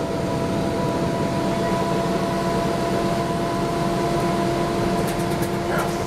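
Cabin of a 1994 TMC RTS transit bus with its Detroit Diesel Series 50 engine running: a steady drone with a few constant whining tones over it, and some light rattles near the end.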